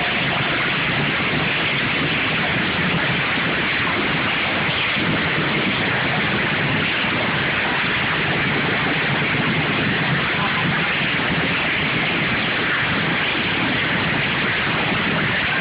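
Racing lawn mower engines running together, blurred into a steady, loud wash of noise through a phone microphone.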